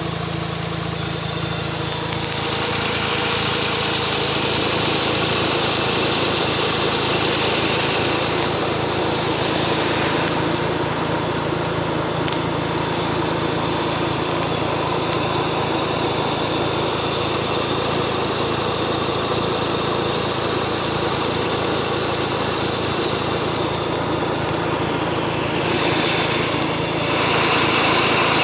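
Mazda RX-8's rotary engine running warm, with a fast, light ticking over the engine sound. The tick is the intermittent one that appears once the car is warmed up, which the owner is unsure is normal. The sound gets louder about two seconds in and again near the end.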